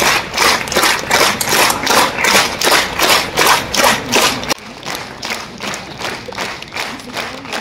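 A crowd clapping in unison, about three to four claps a second. About halfway through the clapping suddenly becomes quieter and carries on at the same pace.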